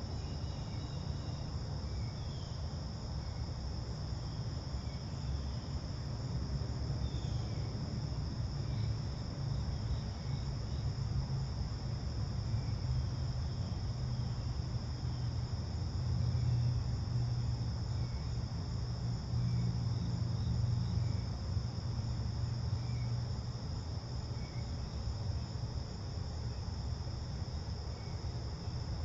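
Steady late-summer insect chorus, one continuous high-pitched drone, over a low rumble that swells a little in the middle.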